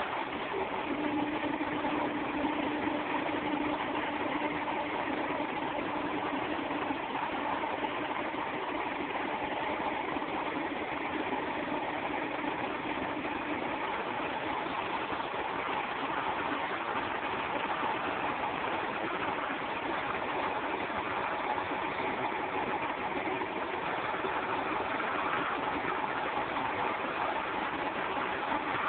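Vertical milling machine running as its end mill cuts a pocket into a green mould block: a steady machining noise with a constant whine.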